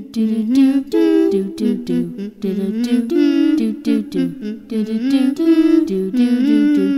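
A single voice humming a wordless melody without accompaniment, in short notes that step up and down.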